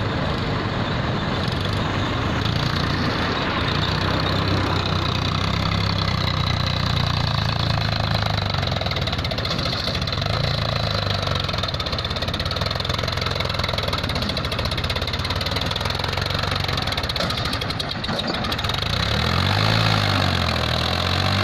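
Powertrac tractor's diesel engine running under load as it pulls a loaded trailer through loose sand, its pitch rising and falling several times near the end.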